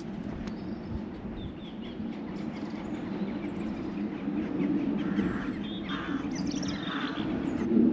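Small birds chirping and calling in short bursts, mostly in the second half, over a steady low hum.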